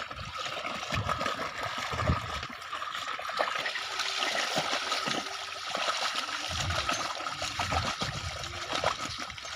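Steady trickling and splashing of water and mud, with irregular dull thuds, as young bullocks draw a plough through a wet field.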